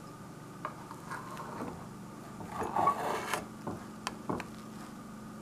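Flat metal cake server scraping and clinking against a glass baking dish as it cuts under and lifts out a slice of tiramisu. There are light clicks at first, a louder run of scraping and knocks about halfway through, then a few more taps.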